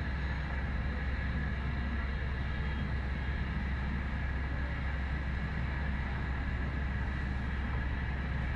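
Steady low engine rumble with a faint, even high whine over it.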